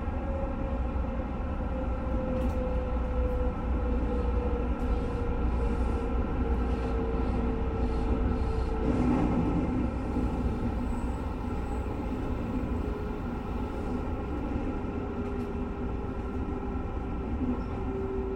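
JR West 221 series electric train running along the line, a steady rumble with a whine that slowly drops in pitch.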